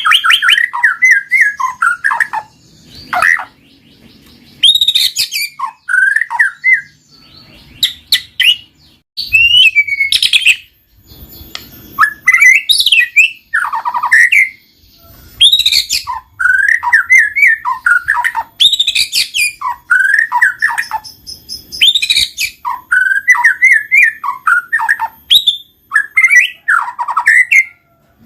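White-rumped shama (murai batu) singing in its full, varied song: quick runs of rising and falling whistled notes in phrases of one to three seconds, with short pauses between them.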